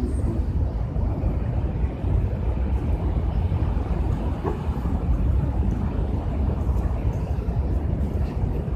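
Steady low rumble of outdoor street noise, with a faint click about four and a half seconds in.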